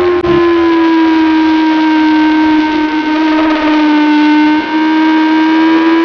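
Motorcycle engine running hard at high revs on a race track, its note held nearly steady through a long leaned-over corner. Brief dips in the sound just after the start and about four and a half seconds in.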